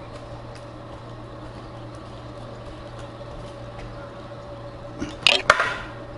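A steady low hum, then a short cluster of sharp knocks and rattles about five seconds in as a metal-hooped dip net holding a crappie is handled.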